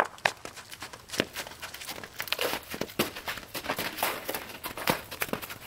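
Irregular crunching steps on crusted, icy snow, with sharp clicks: the loudest come in the first second and they grow denser toward the middle.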